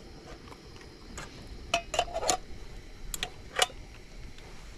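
Eating utensils clinking against dishes during a meal: about half a dozen short, sharp clinks, some with a brief ring, the loudest about three and a half seconds in.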